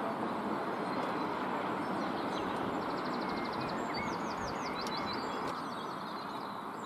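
Steady background noise with small birds chirping: a rapid trill about three seconds in, then a few quick falling chirps.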